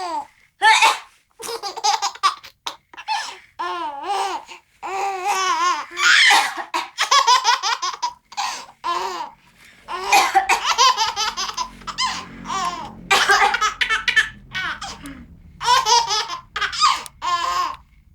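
Baby of about two months laughing hard at someone's coughing: repeated high-pitched squeals and giggling bursts of rising and falling pitch, with short gaps between them.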